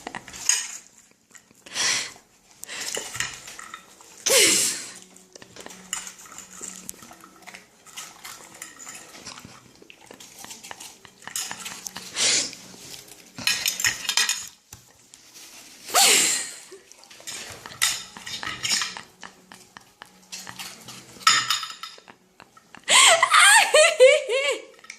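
Dishes and cutlery clinking and scraping in irregular bursts as a dog eats off plates on a table.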